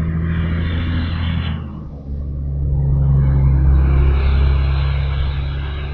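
Tractor engine passing by, a steady low drone that dips briefly, then swells to its loudest about three to four seconds in and eases off.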